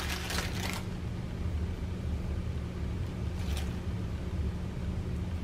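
A plastic zip-top bag rustling briefly at the start and again about three and a half seconds in, over a steady low hum.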